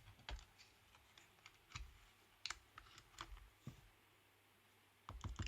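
Faint, scattered clicks and taps of a Nintendo Switch being handled during testing, with a quicker run of clicks about five seconds in.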